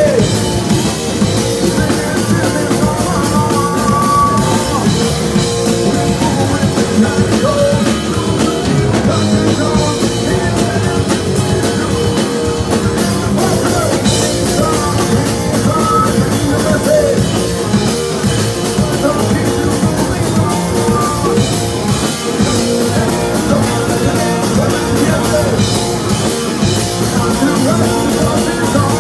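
Rock band playing live: electric guitar, bass guitar and drum kit together, loud and continuous, heard from right at the front of the stage.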